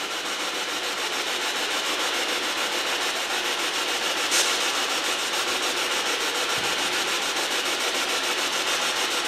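Steady hiss of static from a ghost-hunting device's loudspeaker, pulsing quickly and evenly, with no voice coming through.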